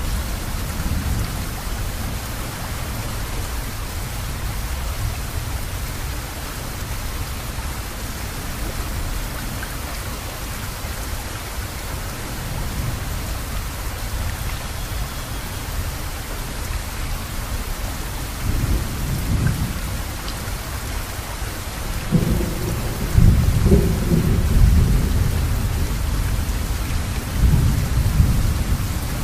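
Wind buffeting the phone's microphone: a steady rumble and hiss, with stronger gusts about two-thirds of the way through and again near the end.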